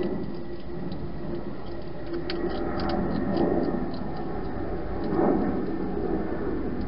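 A hedgehog eating from a bowl: irregular crunchy clicks and crackles with louder rustling swells, over a steady low rumble.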